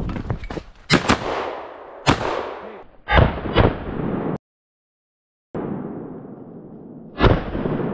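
Shotgun shots: several sharp reports about a second apart, each trailing off in a long echo, then one more near the end after a brief dropout to dead silence.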